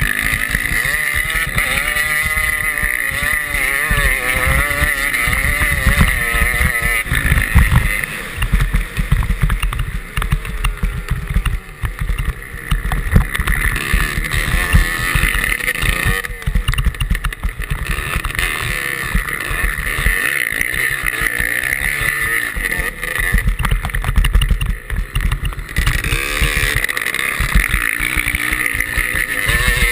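Motocross motorcycle engine towing a skier on a rope across snow. The revs rise and fall repeatedly as the rider works the throttle through the bends, over heavy low wind buffeting on the microphone.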